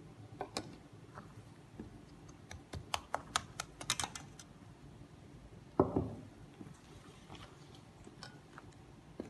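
Plastic spoon clicking against a stainless steel mixing bowl while stirring flour and liquid into a batter. A quick run of clicks comes about three seconds in, then a single heavier, duller knock about halfway through.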